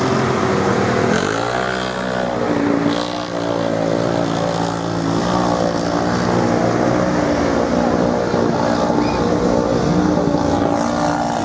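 Off-road 4x4 engines running and revving, pitch rising and falling over a steady lower engine note.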